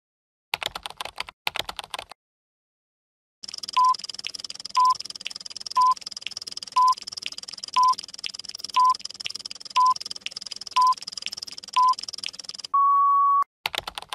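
Keyboard-typing sound effect, a quick run of key clicks, twice in the first two seconds. Then a countdown: a short beep once a second, nine times, over a steady high hiss, ending in a longer beep, followed by another brief run of key clicks at the end.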